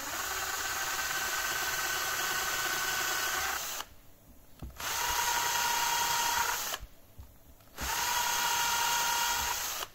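Cordless drill running a 2 mm bit into a 3D-printed plastic charging adapter, in three runs with two short pauses between them. The motor's whine is higher in the first run and lower in the second and third.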